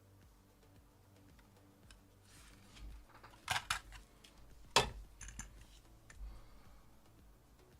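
A few sharp clicks and light clatter of small tools or parts being handled on a workbench: a quick cluster about three and a half seconds in, the loudest single click near five seconds, and a few lighter ones after it.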